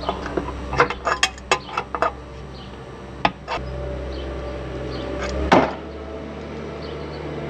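Metal clicks and clanks of a wrench turning the bolts of a Strut-Pro cutlass bearing puller, tightened to force the old cutlass bearing out of the prop-shaft strut. A quick run of clicks comes in the first two seconds, two more follow, and a single louder knock with a short ring comes about five and a half seconds in.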